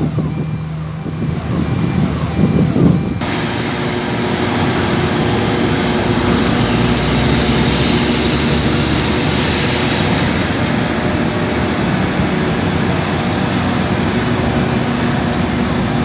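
A large engine running steadily, a constant low hum under a dense even noise, after a few seconds of men's voices at the start.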